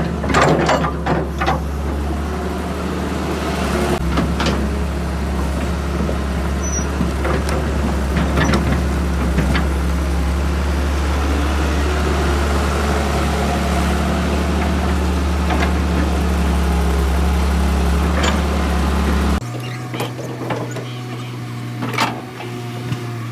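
Tata Hitachi EX200 excavator's diesel engine running steadily under work, with scattered knocks and clanks. About 19 seconds in, the sound drops abruptly to a quieter, higher-pitched engine hum.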